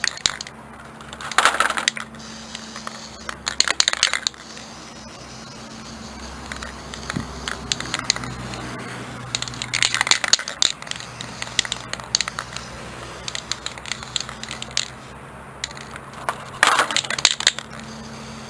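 Aerosol paint can in use on a pair of pliers: four short bursts of crackly, rattling sound, each under a second, with a steady low hum between them.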